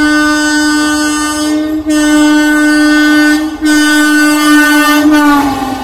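Indian Railways express train sounding its horn on approach: three long, loud blasts with short breaks between them. The pitch falls near the end as the train goes past.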